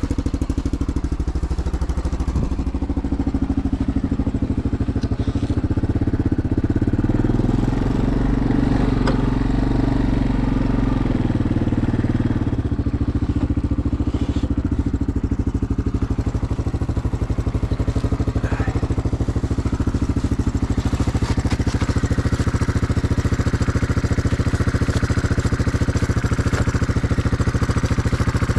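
Small single-cylinder engine running steadily, its note changing between about six and twelve seconds in.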